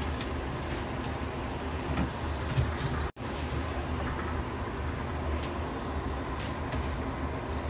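Steady low hum with a soft hiss from a pan of pork and vegetables cooking on a gas stove, with a few faint ticks. The sound drops out for an instant about three seconds in.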